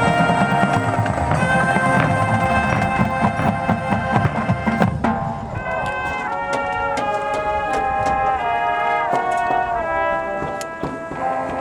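High school marching band playing, with brass and drums together; from about five seconds in the low drums drop away and the brass moves through held chords changing every second or so, punctuated by sharp percussion strikes.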